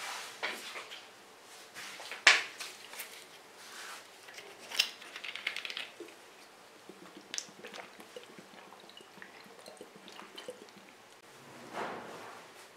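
Scattered small clicks and knocks, the sharpest about two seconds in, with a short quick rattle about five seconds in and a soft rustle near the end.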